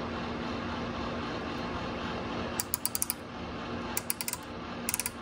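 Depth micrometer's ratchet thimble clicking in three quick runs as it is turned down onto a carburetor flange, the ratchet slipping once the spindle seats. A steady room hum lies underneath.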